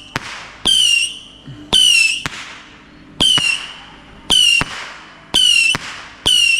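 Multi-shot whistling firework firing in a series, roughly once a second. Each shot is a sharp pop followed by a short, shrill whistle that slides slightly down in pitch and cuts off.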